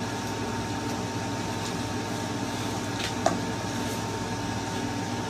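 Steady mechanical hum of a running appliance, even throughout, with one faint click about three seconds in.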